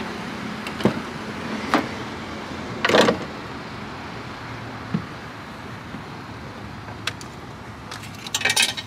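A camper van's sliding side door is unlatched and slid open, with a few sharp clicks and a longer rush as it runs open about three seconds in. Later come single knocks, and a rattling cluster near the end as things are handled inside the van.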